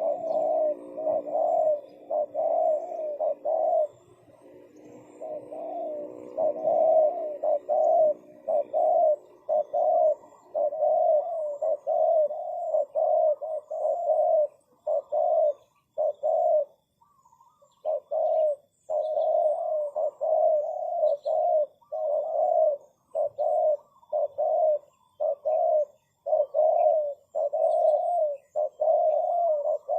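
Spotted doves cooing in a long run of short coos, about two a second, with a pause of about two seconds a little past halfway.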